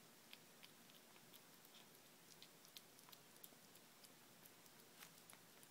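Kitten eating wet cat food from a plate: faint, irregular wet chewing and smacking clicks.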